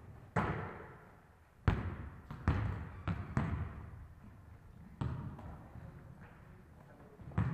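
A volleyball being struck and bouncing on a hard floor: about seven sharp, irregularly spaced smacks, each ringing on in a large echoing hall.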